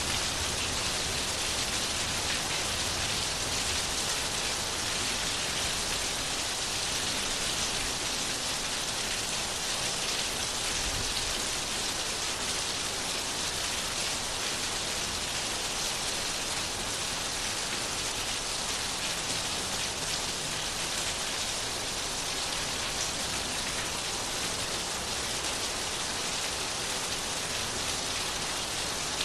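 Steady rain falling, an even hiss of many drops without pause or thunder.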